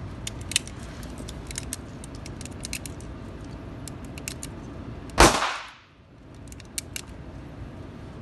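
A single gunshot cracks about five seconds in, echoing briefly in the indoor range. Light metallic clicks and clinks of handling are scattered around it.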